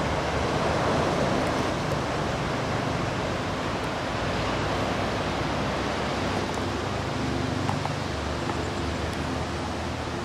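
Steady rushing wind noise outdoors, with a faint low hum joining in during the second half.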